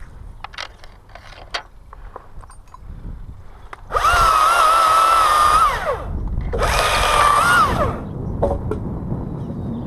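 Chainsaw run up to full throttle twice, about two seconds each, with a short gap between. Each time the pitch drops as the throttle is let off. Light clicks and knocks come before the first burst.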